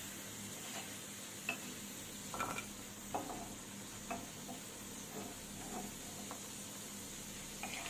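Hot oil sizzling in a wok as fried potato strips are lifted out with a metal spoon, the spoon clinking and scraping lightly against the pan every second or so.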